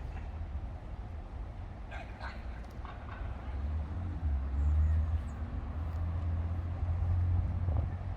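Park ambience: a steady low rumble that swells from about four seconds in, with a dog's short yips about two seconds in and faint voices.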